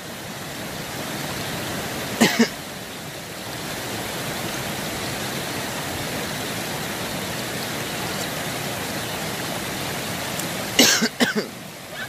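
Small mountain stream running over rocks, a steady rush of water. One brief sharp sound about two seconds in and a short cluster of sharp sounds near the end.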